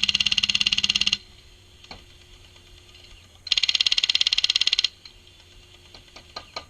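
HPA-powered airsoft light machine gun (G&G LMG with a Wolverine Inferno engine) firing two full-auto bursts, each lasting about a second and a half, with a rapid even rattle of shots.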